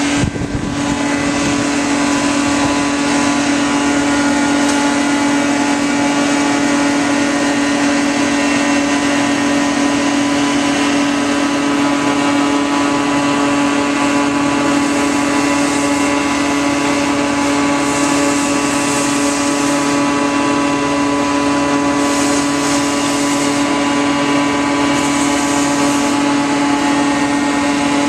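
Engine-driven machinery of a tree-trimming crew running at a steady, constant-speed drone, with a few short rushes of hiss in the last third.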